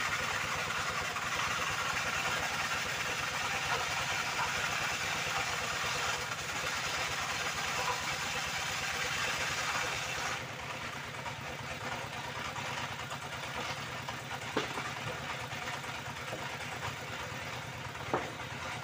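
A machine running steadily with a regular low pulsing. About ten seconds in, the higher hiss drops away and the sound becomes slightly quieter. Two sharp knocks come near the end.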